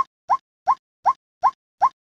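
White-breasted waterhen (ruak-ruak) call: a short rising note repeated at an even pace, six times in two seconds.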